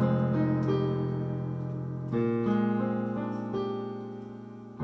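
Yamaha digital piano playing jazz seventh-chord voicings with both hands: an F minor seventh chord ringing, then a new chord struck about two seconds in and left to fade.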